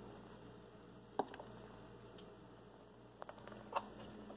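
Near-quiet room tone with a few faint clicks and soft handling noises: a single click about a second in, then a short cluster near the end, as a soft tortilla taco and the phone are handled.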